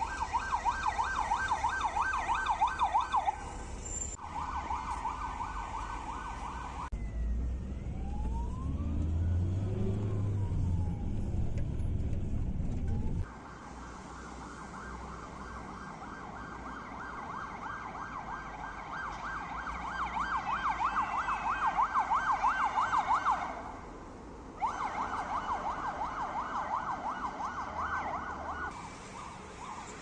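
Electronic siren of a GAZelle NEXT ambulance going past: mostly a fast yelp sweeping up and down several times a second, with a stretch of slow rising-and-falling wail over heavy low engine and traffic rumble in the middle. The sound changes abruptly several times at cuts between clips.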